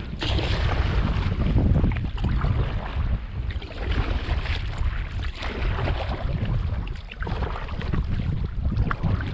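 Strong wind buffeting the microphone: a heavy, gusting rumble that rises and falls in waves.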